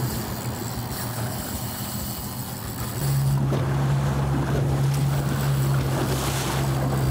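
A small boat's single engine running steadily under way, with water rushing past the hull. The engine gets louder about three seconds in.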